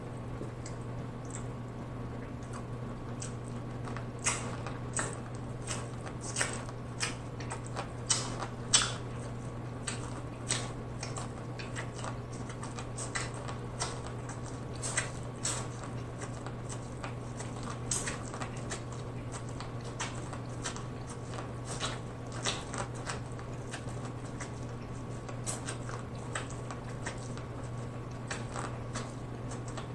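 Close-miked biting and chewing of boiled corn on the cob: irregular wet crunches and mouth clicks, starting about four seconds in, over a steady low hum.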